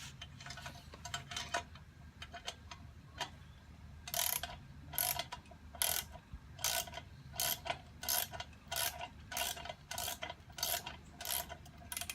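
Ratchet wrench clicking as a bolt is tightened: a few faint clicks, then from about four seconds in a steady run of short ratcheting strokes, roughly two every three seconds.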